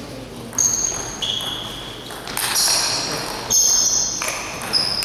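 Table tennis rally: the celluloid ball struck by rackets and bouncing on the table, about six sharp pings, each with a short high ringing tone, coming every half second to a second.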